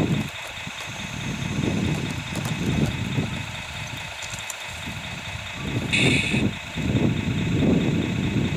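Radio-controlled tracked loader running as it moves along the dirt, with steady high motor whine over an uneven low rumble. There is a short, harsher burst of noise about six seconds in.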